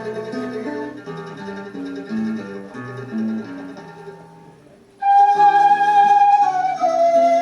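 Andean music: a plucked acoustic guitar plays a picked melody, then about five seconds in a quena (Andean notched flute) comes in loudly with a long held note that steps down to a lower note near the end, over the guitar.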